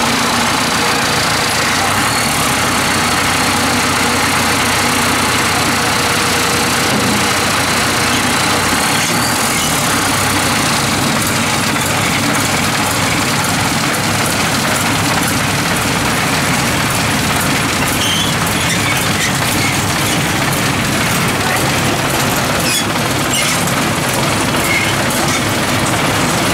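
Tracked rice combine harvester's diesel engine running loud and steady as the machine crawls onto a ferry, with light clanking from its rubber tracks on the steel loading ramps.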